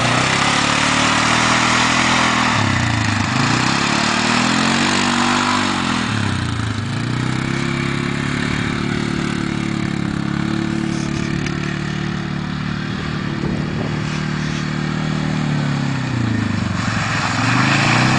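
Polaris ATV engine revving up and down as it is ridden through mud, its pitch dropping and climbing again several times.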